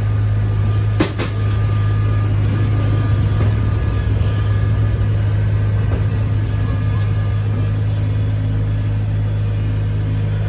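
Kubota rice combine harvester running with a loud, steady engine drone and machinery hum. A sharp knock sounds about a second in.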